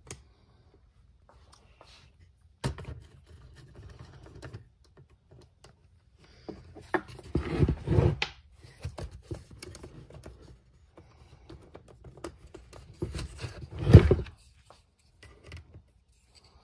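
Plastic clicks, scrapes and rattles of a Streamlight Sidewinder Stalk helmet light being handled and worked along the ARC rail of a helmet, where the rail adapter sits loosely and rattles. Scattered clicks, with two dense bursts of clatter about eight seconds in and near fourteen seconds, the second the loudest.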